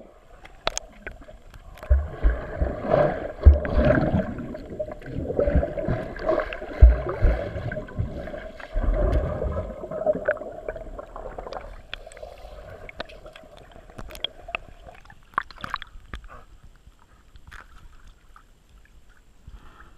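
Dog paddling and splashing in a swimming pool, heard underwater through a camera's waterproof housing: muffled churning and sloshing with low thumps, dying down after about fifteen seconds.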